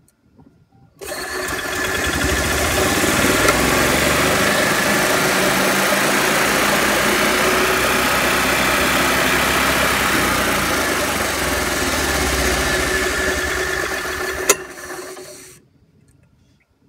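Gas Club Car golf cart's single-cylinder engine starting about a second in and running steadily, driving the clutch and belt, then a sharp click near the end and the engine shutting off.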